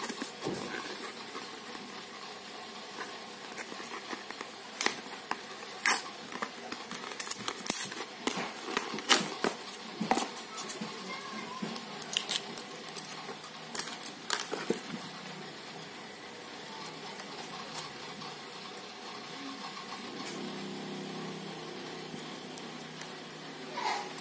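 Hands handling and opening a plastic blister pack and a small plastic case to take out an SD memory card: scattered crinkles and sharp plastic clicks over a steady hiss, thickest in the first two-thirds.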